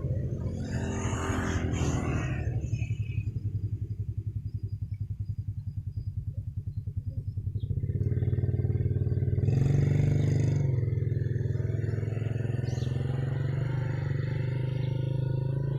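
An engine running steadily, its low hum pulsing rapidly and evenly.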